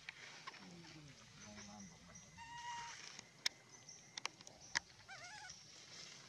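Macaques calling: a string of short pitched calls that slide in pitch, a few sharp clicks a little past the middle, and a wavering, quavering cry near the end.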